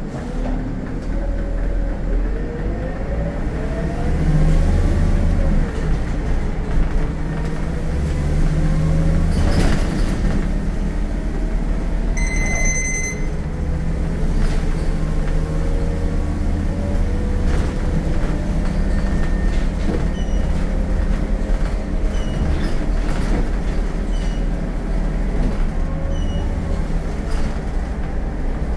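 Scania K230UB city bus's DC9 diesel engine pulling hard under full-throttle kickdown, heard from the driver's cab, its pitch rising and dropping as the ZF Ecomat automatic gearbox shifts up while the bus accelerates. A short electronic beep sounds about twelve seconds in.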